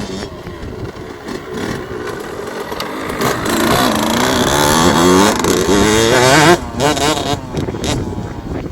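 2011 KTM SX 65's 65 cc two-stroke single-cylinder engine, on its stock exhaust, revving up. It gets louder and higher in pitch, the revs rising and falling in steps, then drops off suddenly about six and a half seconds in and carries on lower.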